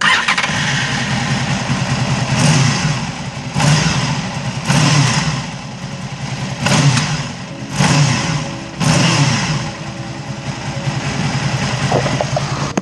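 Honda VFR800's V4 engine running, revved in six quick blips about a second apart. The corroded collector-box-to-silencer joint has just been patched with epoxy putty, and no exhaust blowing is heard from it.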